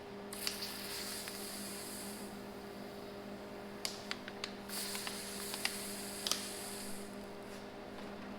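Electric welder arc crackling and hissing in two bursts of about two seconds each, laying more weld onto a nut welded over a broken bolt. A steady electrical hum runs underneath, with a few sharp clicks between the bursts.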